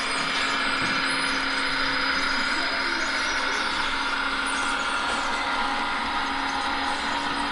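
Radio-controlled scale model vehicles running: a steady mechanical hum with one constant low tone.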